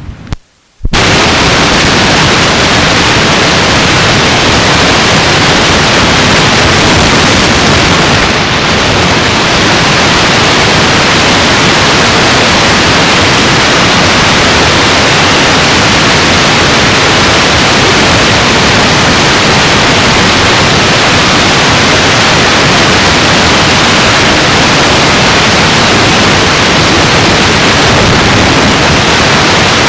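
Loud, steady static hiss on the recording with no speech, cutting in abruptly just under a second in after a brief gap. It holds even throughout apart from a slight dip about eight seconds in.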